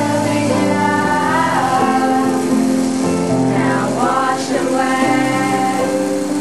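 Music from a quartet: several held notes sounding together and moving from chord to chord, with singing voices among them.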